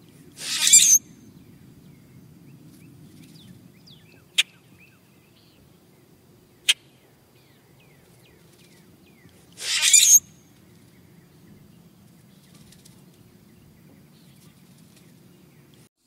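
Common grackle giving its creaky, rusty-gate song twice, about nine seconds apart: each a harsh rasp about half a second long that swells and ends in a high squeal. Two sharp single clicks fall between the songs, over a low steady rumble with faint chirps of other birds.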